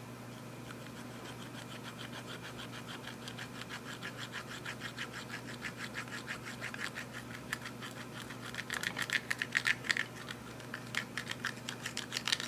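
Clear slime being squeezed and kneaded by hand, giving a rapid run of small wet clicks and pops, several a second. It grows louder about two-thirds of the way through.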